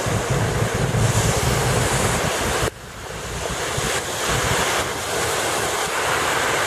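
Stormwater rushing out of a breached, overwhelmed catch basin, mixed with tyres hissing through water on the flooded road and wind buffeting the microphone. The noise drops off suddenly a little under three seconds in, then builds back up.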